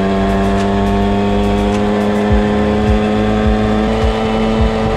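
Piaggio Ciao moped's small two-stroke single-cylinder engine running under way at a steady cruise, its pitch creeping up slowly. Wind buffets the microphone in irregular low thumps.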